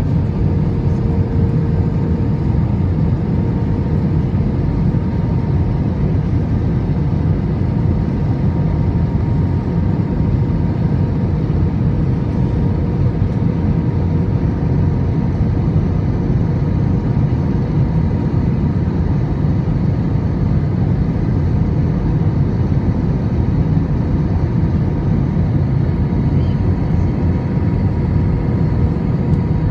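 Airbus A321-200 cabin noise in flight: a steady low rush of engines and airflow, with a faint steady hum above it.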